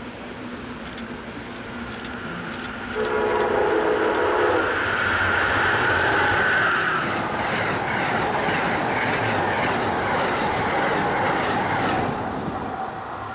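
A train passes at speed without stopping. Its horn sounds a brief chord about three seconds in, then its wheels clack over the rail joints about twice a second until it drops away about twelve seconds in.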